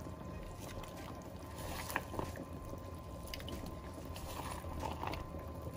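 A big pot of stew bubbling steadily on the boil while onion wedges are tipped in from a bowl, with a few soft plops and splashes about two seconds in and again near five seconds.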